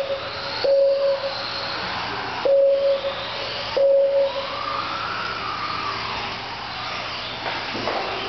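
Kyosho Mini-Z electric RC cars running on a carpet track, a steady high whir of small motors, with one car's whine rising and falling near the middle. Four short electronic beeps of the same pitch cut in at uneven intervals over it: the lap timer counting cars crossing the line.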